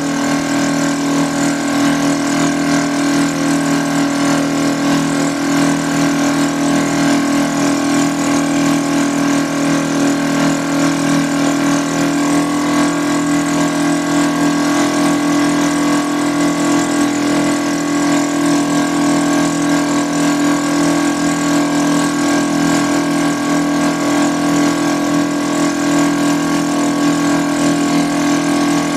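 Outrigger fishing boat's engine running steadily under way, a constant hum that holds the same pitch throughout.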